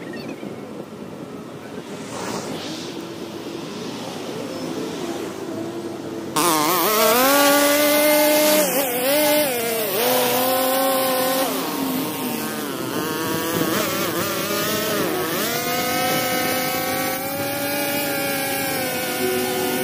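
Two-stroke string trimmer cutting tall overgrown grass. Its engine runs quieter for the first several seconds. It then runs loud at high revs, the pitch dipping and rising again and again as the line bites into the grass.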